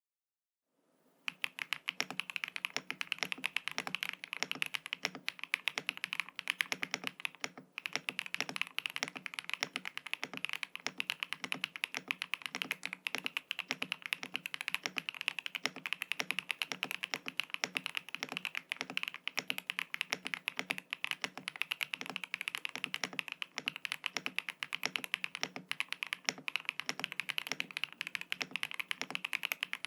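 Fast, continuous typing on a mechanical keyboard with stock Gateron Smoothie linear switches, PBT cherry-profile keycaps and a polycarbonate plate: a dense stream of key clacks that starts about a second in.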